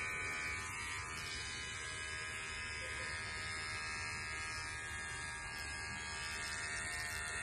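Corded electric pet hair clipper running with a steady buzz as it shaves a cat's belly fur.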